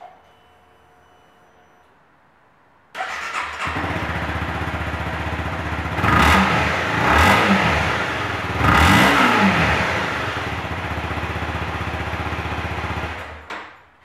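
Honda CBR250R's 249 cc single-cylinder engine through its stock exhaust, starting about three seconds in and settling to idle. It is revved in a few quick blips midway, idles again, and is switched off about a second before the end.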